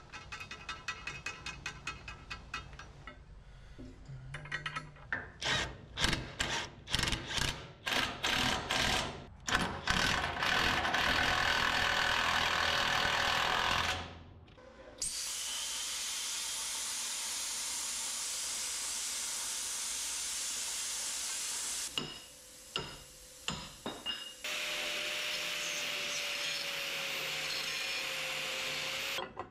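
A DeWalt cordless impact tool with a socket driving bolts through a steel plate, in a string of short bursts and then held on; then an angle grinder cutting steel plate, running steadily in two long passes with a short break between.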